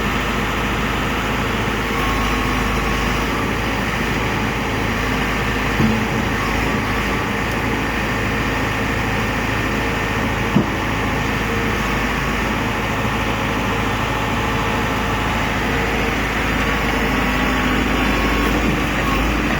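Articulated backhoe loader's diesel engine running steadily, with two short knocks about six and ten seconds in.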